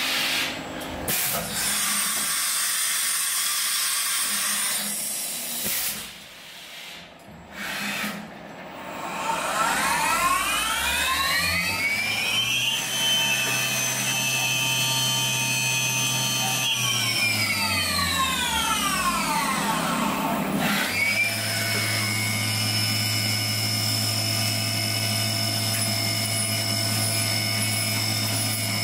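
CNC milling machine spindle drilling an aluminium 6061 part under flood coolant. After a few seconds of coolant hiss, the spindle's whine rises in pitch, holds for a few seconds, then winds down. It comes straight back up and runs at a steady pitch.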